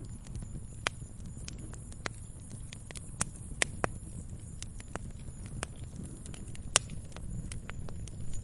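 Fire crackling: a steady low rush of burning with sharp, irregular pops and snaps, a few of them loud.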